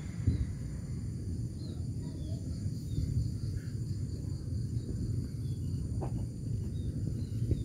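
Outdoor ambience: a low, steady rumble with a few faint high chirps over it.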